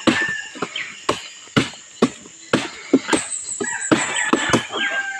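Machete blows chopping into a felled palm trunk to cut out the palm heart, sharp chops coming about two a second.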